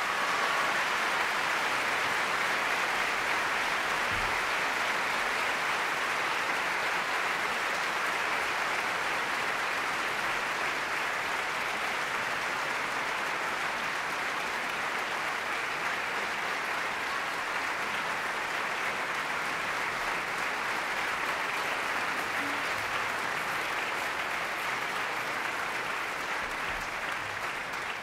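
Large theatre audience applauding steadily, a dense, sustained ovation.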